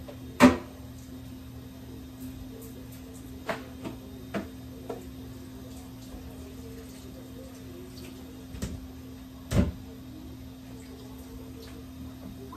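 Knocks and clunks of things being handled at a stainless-steel kitchen sink: a sharp knock about half a second in, a few lighter taps a few seconds later, and two heavier thuds near the end, over a steady low hum.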